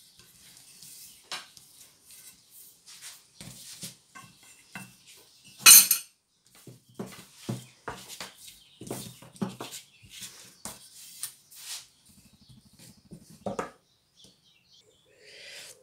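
Thin wooden rolling pin knocking and rolling on the table while rolling out sheets of dough: a string of irregular light knocks, with one sharper, louder clack about six seconds in.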